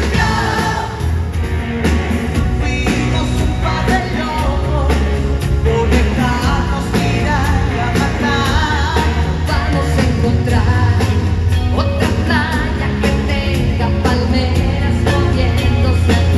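Live pop music in an arena: women's voices singing into microphones over a full band with a steady drum beat and heavy bass.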